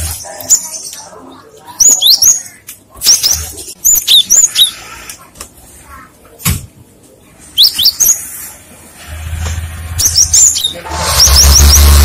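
Cinereous tit (gelatik batu) calling: sharp, high, falling notes in quick groups of two or three, repeated every second or two, ending in a run of four fast notes. A low rumble with hiss swells up under the calls in the last few seconds.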